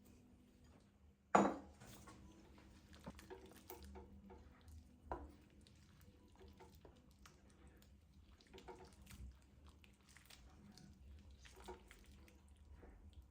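Kitchen dishes and utensils clinking and knocking in a run of small clicks, with one sharp clatter a little over a second in and a smaller knock around five seconds.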